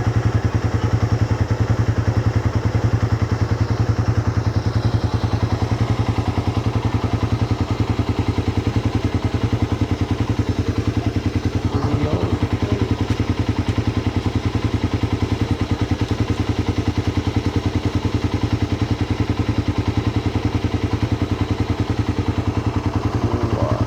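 Suzuki Raider 150's four-stroke single-cylinder engine idling steadily through its stock exhaust, with an even, fast exhaust pulse.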